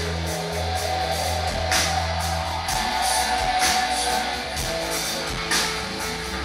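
Live rock band playing loud distorted electric guitars over a sustained bass line and drums, with a cymbal crash about every two seconds.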